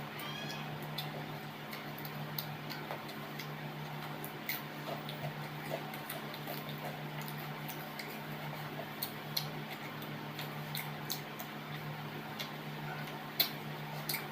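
Close-up eating sounds: irregular small clicks and smacks of chewing and mouth noises, over a steady low hum.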